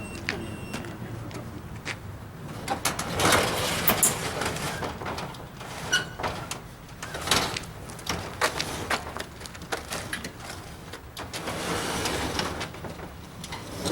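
Irregular knocks and clicks with several longer scraping, rustling swells, like objects being handled and moved about.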